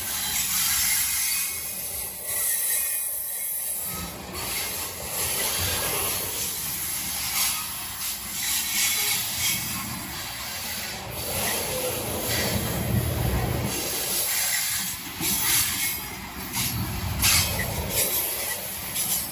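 Covered hopper cars of a freight train rolling past: a steady rumble and hiss of steel wheels on rail, with irregular clicks.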